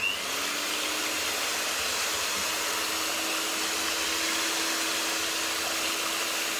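Electric hand mixer on its lowest speed, its twin wire beaters whisking a thin liquid in a glass bowl. The motor spins up with a brief rising whine, runs with a steady hum and whirr, and switches off abruptly at the end.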